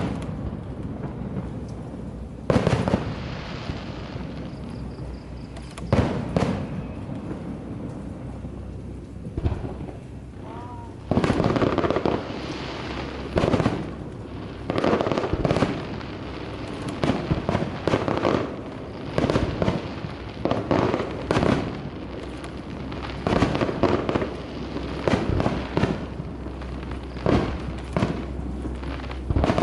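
Fireworks display: aerial shells bursting one after another, each a sudden bang with a booming echo over a constant low rumble. The bangs come faster, about one a second or closer, from about 11 seconds in.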